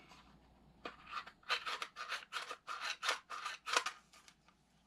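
Polymer AR-15 magazine being handled: a run of about a dozen short plastic rasping scrapes, roughly three a second, starting about a second in and stopping near the end.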